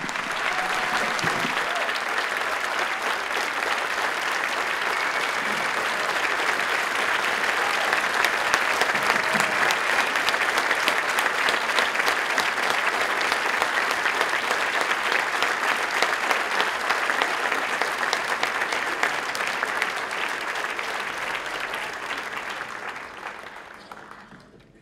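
A large theatre audience applauding steadily, the clapping dying away in the last second or two.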